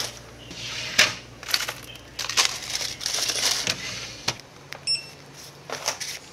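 Shop goods being handled: irregular knocks and rustling of plastic packaging and bottles, with a short beep about five seconds in.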